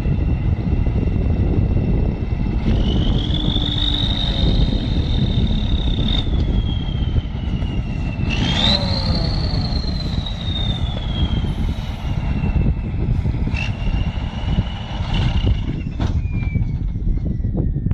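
KrAZ six-wheel-drive truck's diesel engine working hard as the truck churns up out of deep mud: a loud low rumble with a high whine that climbs sharply twice and then slowly sinks.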